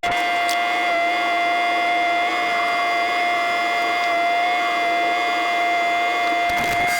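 A small motor running with a steady high-pitched whine, rising in pitch near the end.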